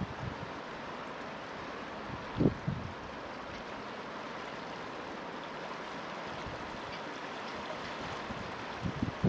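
Steady rushing of a fast-flowing river, with one brief low thump about two and a half seconds in.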